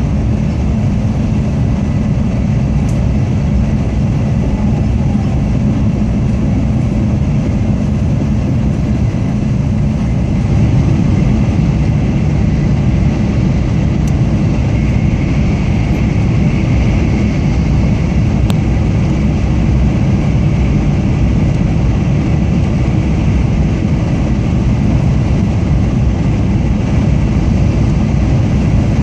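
Tokaido Shinkansen Kodama train heard from inside the passenger car while running at speed: a steady low rumble of running noise, getting slightly louder about ten seconds in.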